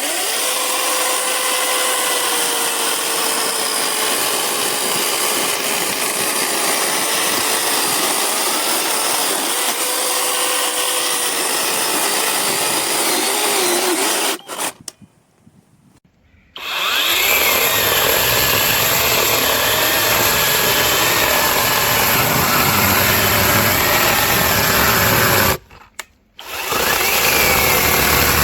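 Cordless brushless electric chainsaw running and cutting through wood, its motor pitch wavering under load. It runs in three long stretches, stopping briefly about halfway and again near the end.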